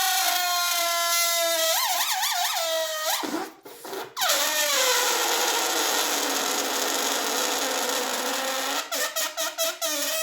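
A balloon deflating: air squealing out through its stretched neck in a high, falling tone that wavers, cuts out briefly about three seconds in, then picks up again as a steady squeal that stutters near the end.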